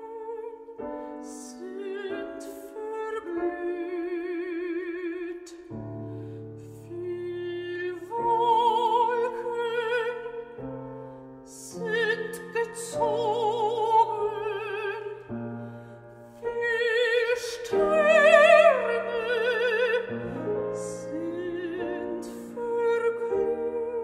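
Soprano and mezzo-soprano singing a classical art-song duet with wide vibrato over piano accompaniment. About three-quarters of the way through, a loud high held note slides downward.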